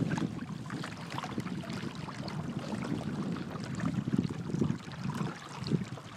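Water rushing and splashing along a sailing kayak's hull as it moves under sail, with wind buffeting the microphone in gusts.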